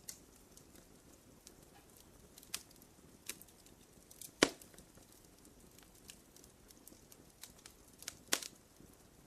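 Campfire crackling: scattered sharp pops and snaps of burning wood over a soft low rustle of flame, with two louder pops about four and a half seconds and eight seconds in.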